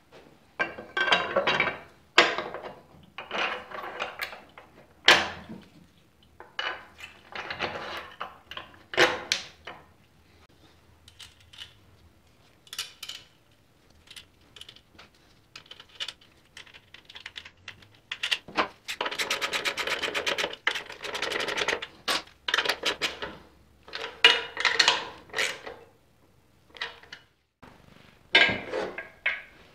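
Metal parts and hand tools clinking and clattering during reassembly of a trike's frame and running gear, in irregular bursts. About two-thirds of the way through comes a few seconds of rapid, even clicking.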